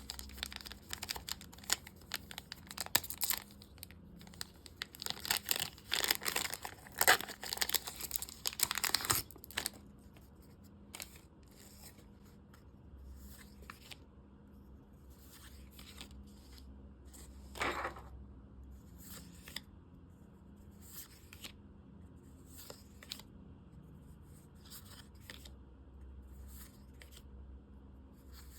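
A plastic trading-card booster pack wrapper being torn open and crinkled for the first nine seconds or so, then quieter scattered rustles and clicks of the cards being handled, with one louder rustle about two-thirds of the way through.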